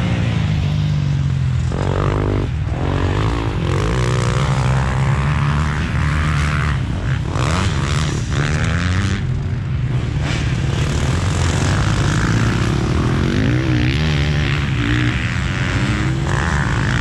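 Motocross bike's engine heard onboard, revving up and falling back over and over as the rider works the throttle around the track. Wind buffets and knocks on the bike-mounted microphone come through over it.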